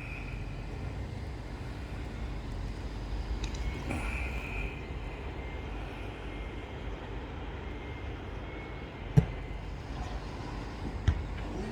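Open-air background at an amateur football match: a steady low rumble, with a sharp thump about nine seconds in and a lighter one near the end.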